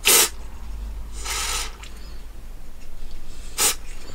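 Aerosol contact cleaner sprayed in three short hisses onto the radio's turning control: one at the start, a longer one about a second in, and a brief one near the end. It is being applied to clean a control that crackles when turned.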